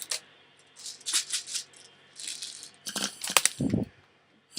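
BBs rattling inside a homemade plastic medicine-bottle airsoft gun, in three or four short shakes.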